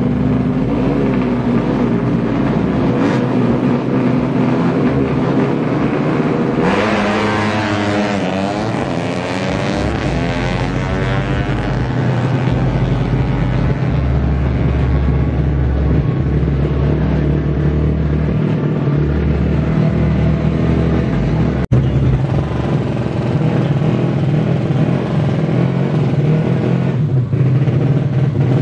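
Small underbone drag-race motorcycle engine held at high revs on the start line, then launching about seven seconds in and accelerating hard, its pitch climbing in repeated sweeps as it shifts up through the gears. Later, another drag bike's engine runs and revs steadily on the start line.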